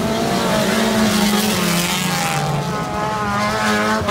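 Autocross race cars' engines running as they drive past on the dirt track, several engines droning together with their pitch wavering slightly.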